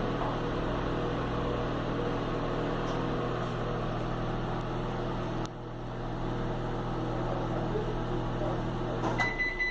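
Philco PME 31 microwave oven running through a heating cycle: a steady hum with its cooling fan, and no crackling now that the shorted magnetron connector has been fixed. There is a click about five and a half seconds in. Near the end the hum stops and a short beep sounds.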